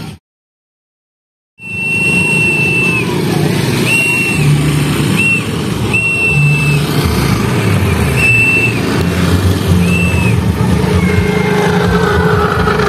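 The audio is cut for about the first second and a half. Then a high whistle is blown in about seven blasts, some short and some close to a second long, each dropping in pitch as it ends, over loud low rumbling background noise.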